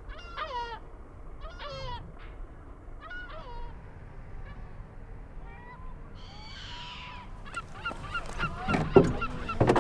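Birds calling over the water with goose-like honks: a series of calls, each falling in pitch, spaced roughly a second or so apart. Near the end comes a busier stretch of short calls and clicks, with one sharp knock.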